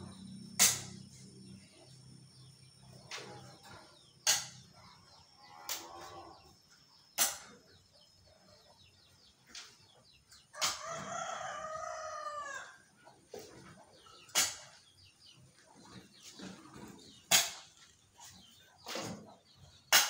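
A hoe striking stony soil: sharp chopping impacts with a gritty scrape, one every few seconds. A rooster crows once, about halfway through.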